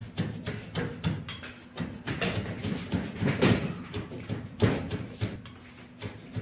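Kitchen knife chopping on a plastic cutting board: quick, irregular knocks about three a second, easing off near the end.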